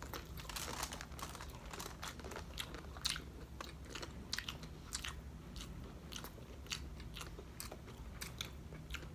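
Close-miked chewing and biting of crunchy fried pork chop and vegetables: irregular crisp crunches, about one or two a second, over a steady low hum.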